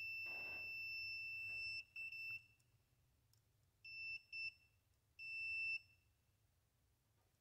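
Digital multimeter's continuity beeper, set to ohms, sounding during a continuity test on the wiring of a Roto-Zip spiral saw. A steady high beep runs for about two seconds, then cuts in and out as a few shorter beeps.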